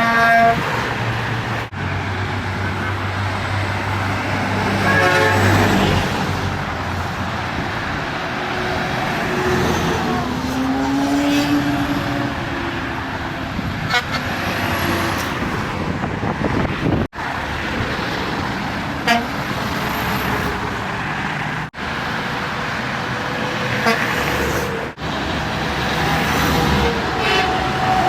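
Semi-truck air horns honking several separate times over steady highway traffic noise; one horn bends in pitch as it goes by.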